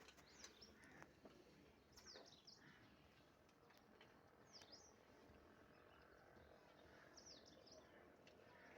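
Faint bird calls: a short, high chirp that sweeps down and back up, repeated about every two to three seconds over quiet outdoor background noise.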